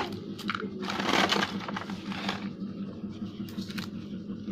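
Battery-powered toy train running on its plastic track, its small motor buzzing steadily with a rapid rattle, with a short rustling burst about a second in.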